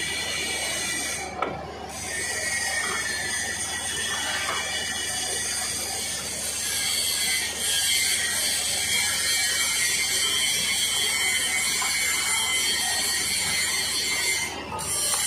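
Steady workshop machine noise: a hiss with several high whining tones, and one sharp click about a second and a half in.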